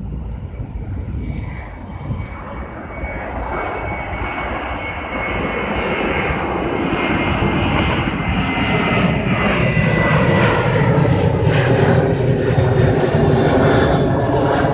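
A steady engine drone that grows louder over the course of the sound.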